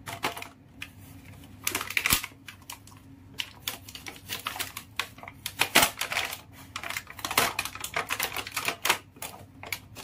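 Clear plastic blister packaging on a toy's cardboard backing clicking and crackling under fingers, a string of irregular sharp clicks and taps as it is pressed and peeled open.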